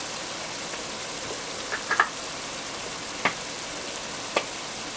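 Blended vegetables and tomato paste frying in oil in a pot: a steady sizzle, with a few sharp clicks about two, three and four seconds in.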